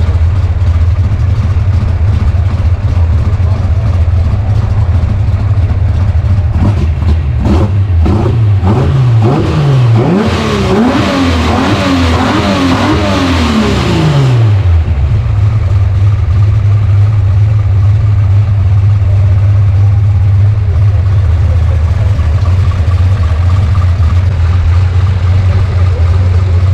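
Chevrolet Opala's aspirated, tuned 4.1-litre straight-six idling through a loud exhaust; about seven seconds in it is revved in a quick run of throttle blips for several seconds, then drops back to a steady idle.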